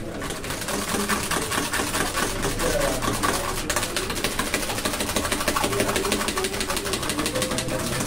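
A metal utensil stirred rapidly inside a copper tumbler, making a fast, even rattle of metal on metal.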